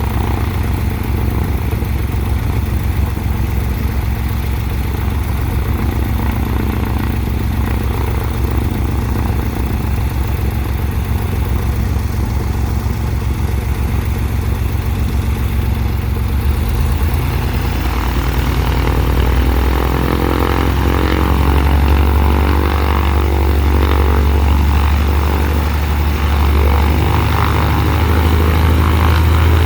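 Cessna 182's six-cylinder piston engine and propeller running steadily on the ground, then brought up to higher rpm about two-thirds of the way through, growing louder. This is the first run-up after a new exhaust system and a new cylinder were fitted.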